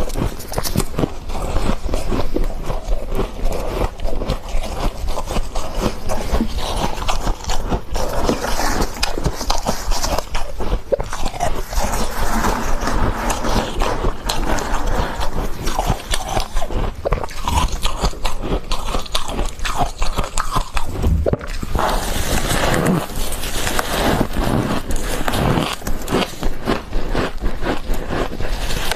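Close-up crunching and chewing of freezer frost: dense, rapid crackling bites with scraping, unbroken throughout.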